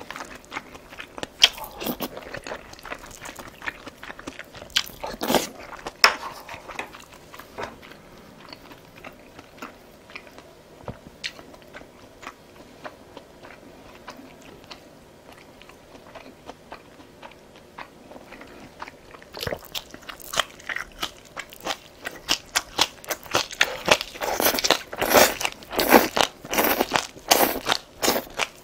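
A person biting and chewing green onion kimchi, crunching mouth sounds picked up close: scattered crunches at first, a quieter stretch in the middle, then dense, loud crunching and chewing for the last third.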